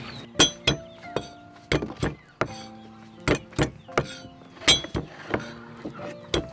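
Kitchen knife striking a wooden chopping board in sharp, irregular knocks about two a second, as it cuts the flesh from gooseberries.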